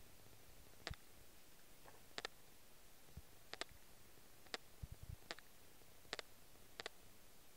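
Faint handling noise from a sketchbook being held and paged through: about seven short, sharp clicks at irregular intervals, with a few soft low thumps between them.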